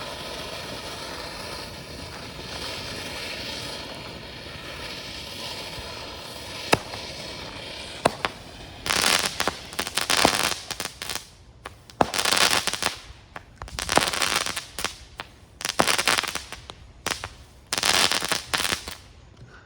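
Consumer firework fountain spraying with a steady hiss and two sharp pops. From about nine seconds in it gives about six loud bursts of crackling stars, then stops just before the end.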